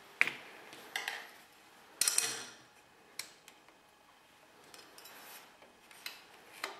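Aluminium aerial parts clicking and clinking as the deflector bracket and its elements are slid and locked onto the boom: a few sharp metallic clicks, with the loudest clatter about two seconds in.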